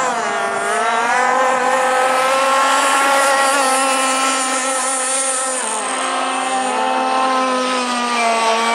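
Ossi F1 RC racing powerboat's engine running at high revs as the boat races across the water. The pitch dips briefly about half a second in and again around six to seven seconds in.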